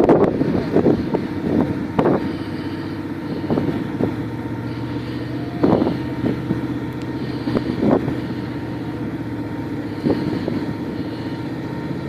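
Off-road 4x4 engine running at a steady speed, with a few short knocks here and there.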